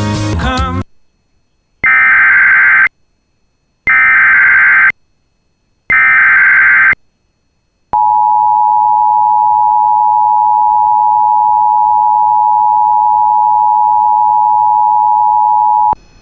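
Emergency Alert System header: three one-second bursts of SAME data tones, each followed by a second of silence, then the two-tone EAS attention signal held steady for about eight seconds before it cuts off sharply. A brief burst of other sound comes at the very start.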